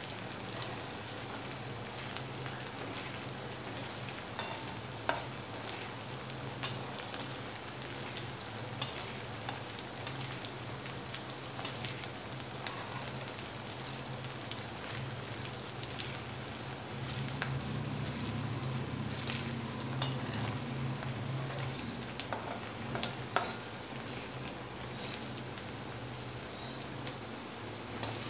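Chopped onion sizzling steadily in hot oil in a metal kadai, stirred with a metal spatula that now and then clicks and scrapes against the pan. The onion is being sautéed until it turns translucent.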